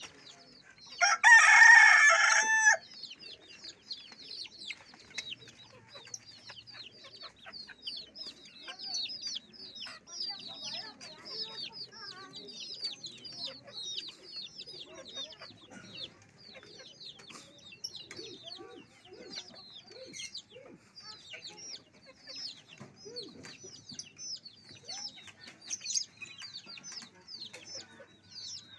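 A rooster crows once, loud and drawn out, about a second in. Constant quick, high-pitched bird chirping follows.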